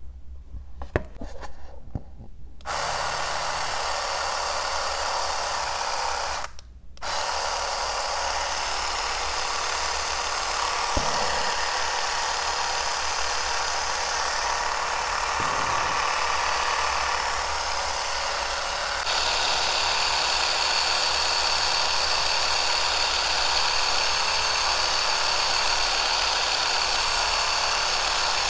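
Philips Satinelle wet & dry epilator running, its rotating tweezer head making a steady mechanical whir. It starts about two and a half seconds in after a few handling clicks, cuts out briefly and restarts, and about two-thirds of the way through it turns louder with a high steady whine added.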